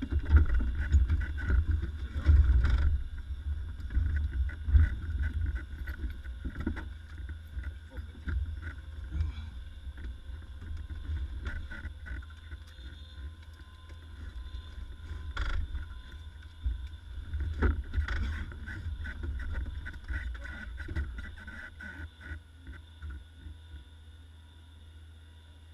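Wind rumbling on the microphone through the open cabin door of a light aircraft, with knocks and rustles of the occupants unbuckling and climbing out. The sounds die away a few seconds before the end as the cabin empties.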